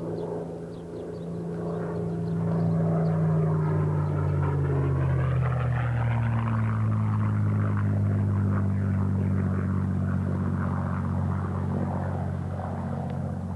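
P-51 Mustang's Merlin V-12 engine on a fast pass: it grows louder, and about five seconds in its pitch drops as the plane goes by, then it drones on steadily as it draws away.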